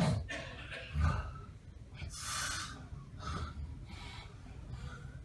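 A sleeper snoring heavily: a low snort about a second in, then a long breathy gasp about two seconds in, and several softer rasping breaths after it. The gasping for air is what the uploader links to sleep apnea.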